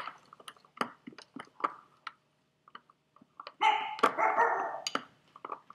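Spoons clicking against ceramic mixing bowls as batter is stirred. A little past halfway, a small dog barks in a run lasting about a second and a half.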